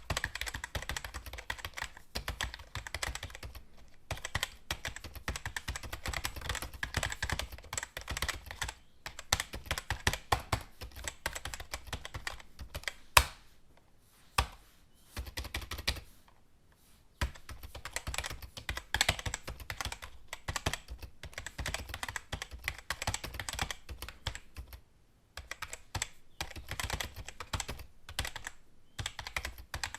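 Computer keyboard typing: fast runs of key clicks, broken by a few short pauses, with one louder key strike partway through.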